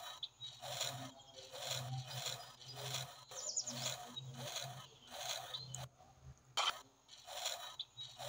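A small metal plough blade pushed by hand through fine sand, scraping in short strokes about twice a second.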